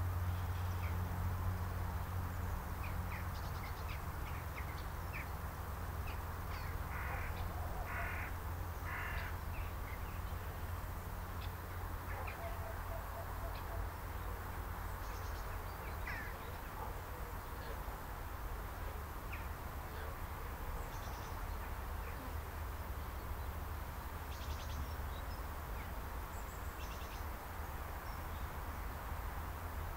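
Outdoor countryside ambience: birds calling, with three short harsh calls in a row about a quarter of the way in and scattered small high chirps, over a steady low rumble.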